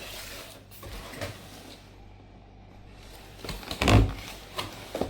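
Handling of a damaged shipping box: rustling and scraping, then a heavy thump about four seconds in, followed by a couple of sharper knocks.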